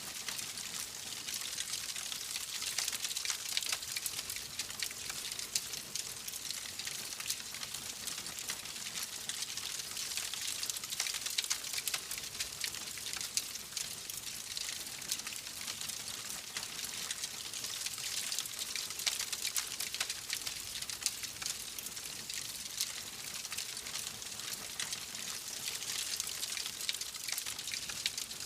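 Fire burning in a fireplace: a dense, steady crackle of many small snaps over a continuous hiss.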